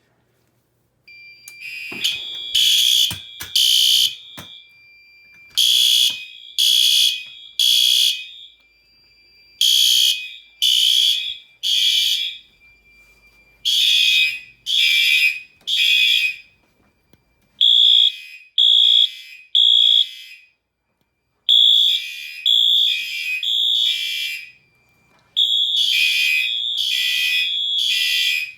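Fire alarm horns sounding the temporal-3 (code 3) evacuation pattern: three high-pitched blasts, a pause, repeating, after a pull station is pulled. The horns are not quite in step with one another, so some blasts blur together. A few clicks come just before the first blasts, about two seconds in.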